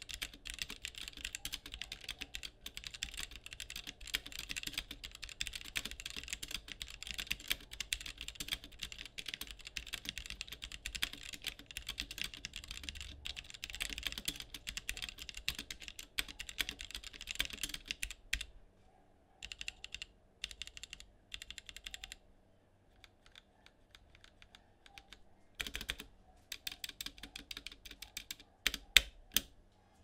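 Rapid typing on a Womier K66 acrylic-bodied mechanical keyboard with linear Gateron Black switches: a dense, continuous run of keystrokes that thins out about two-thirds of the way through to scattered presses, with a brief pause. This is a typing test of the switches and of the stabilizers, which the reviewer finds rattly on the spacebar, Shift, Enter and Backspace.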